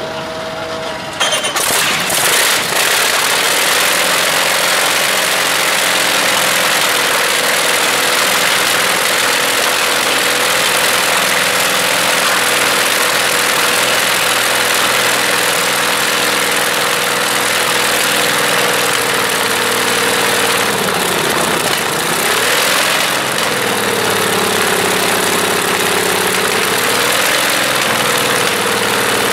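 Shvetsov ASh-62 nine-cylinder radial aircraft engine on a cold start, picking up and getting louder about a second in, then running steadily. Around two-thirds through the revs dip sharply and recover, then settle lower for a few seconds before rising again near the end.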